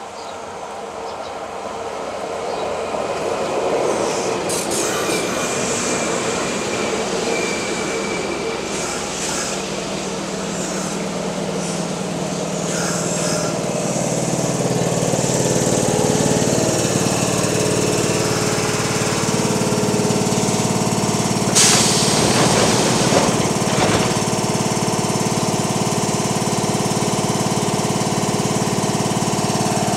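Kintetsu 8400 series electric train arriving and braking to a stop in heavy rain, with brake and wheel squeals as it slows. Once stopped it stands with a steady low hum from its onboard equipment, and a sharp hiss of air about 22 seconds in as the doors open.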